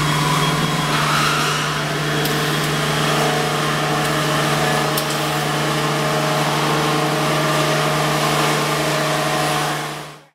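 Steady industrial machinery noise in a robot work cell: a constant low hum with an even hiss over it, fading out near the end.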